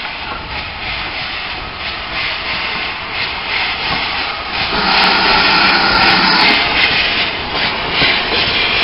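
Great Western Railway steam tank locomotive drifting slowly into a station and passing close by, with a steady hiss of steam growing louder as it nears. About five seconds in, a steady low tone joins the hiss.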